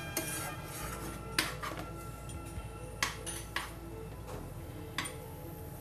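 A metal ladle stirring a thick tomato masala in a metal pan, clinking against the pan four times, over soft background music.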